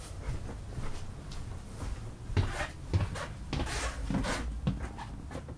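A run of irregular knocks, clicks and thumps inside the motorhome, the loudest low thumps about halfway through, over a steady low rumble.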